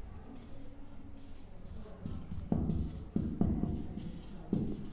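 Marker pen writing on a whiteboard: a run of short scratchy strokes as a word is written out, with a few dull knocks in the second half.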